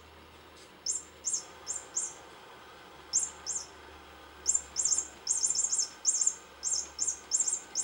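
Electronic chirping mouse cat toy giving short, very high-pitched chirps, mostly in twos and threes at irregular gaps, coming more often in the second half.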